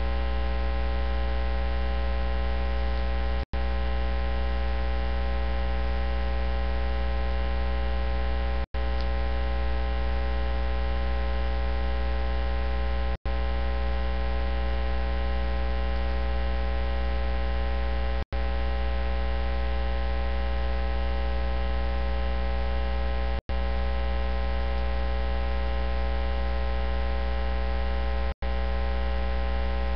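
Loud, steady electrical mains hum with a dense stack of overtones and no voice coming through. The hum cuts out to silence for a split second about every five seconds, six times in all.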